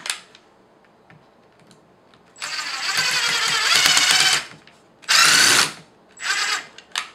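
A DeWalt 12 V cordless drill runs in three bursts, starting about two seconds in, while its keyless chuck is tightened onto a plastic tool. The motor whine rises in pitch through the first and longest burst.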